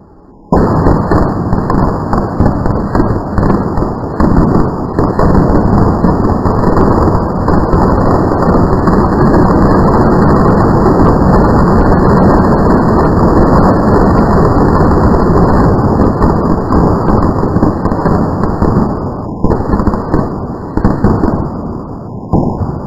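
Firecrackers going off in very rapid succession, a dense, loud crackle of bangs that starts suddenly about half a second in and carries on for about twenty seconds, breaking into a few separate pops near the end.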